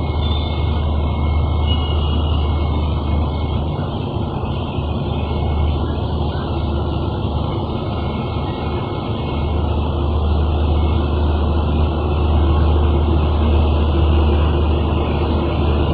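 Steady low rumble and hum of an express train hauled by a WAP-7 electric locomotive, approaching the platform slowly.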